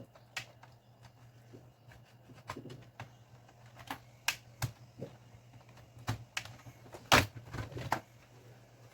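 Scattered sharp clicks and light taps of a laptop's plastic case being handled and closed up, the loudest about seven seconds in, over a faint steady low hum.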